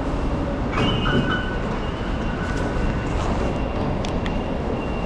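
Metro fare gate beeping as a transit card is tapped on its reader, a click and two short high beeps about a second in, over a steady low rumble of station noise.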